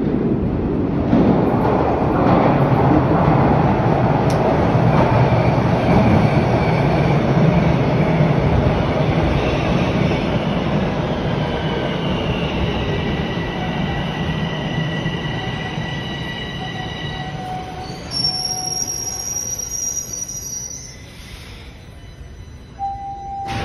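TTC Line 1 subway train pulling into the station: a loud rumble of wheels on the rails, then steady high-pitched wheel squeal as it slows, with the noise dying down over the last few seconds.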